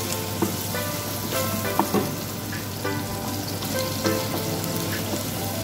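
Chopped red onions sizzling in hot oil in an enamel pot, stirred with a wooden spatula that knocks against the pot now and then.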